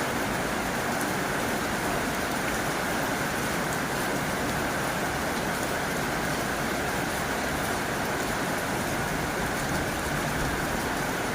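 Heavy rain falling on a tin roof: a steady, dense hiss with faint scattered drop ticks.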